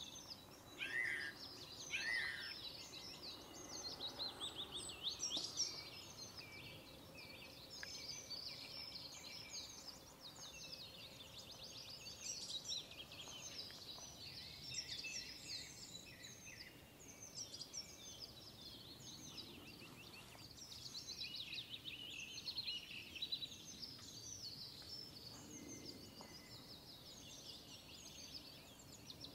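Several small birds chirping and trilling at once in a continuous chorus of quick, overlapping high notes.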